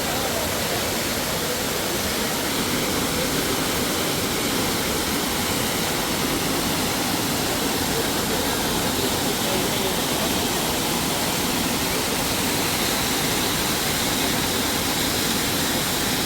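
Steady rush of the Düden waterfall: even, unbroken falling-water noise.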